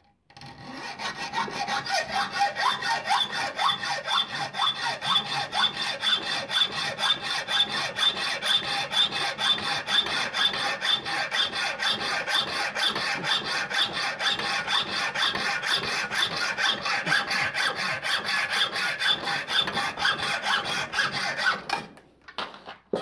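Hand hacksaw cutting through a small metal workpiece clamped in a bench vise, in quick, even back-and-forth strokes of about three a second. The sawing stops about a second before the end.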